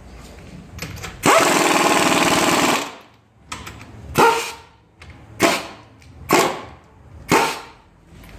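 Pneumatic impact wrench rattling, driving wheel lug bolts: one long burst, then four short bursts about a second apart.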